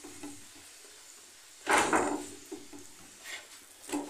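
A sudden knock of a slotted spatula against a non-stick tawa while turning a paratha, about two seconds in, followed by a couple of softer knocks near the end.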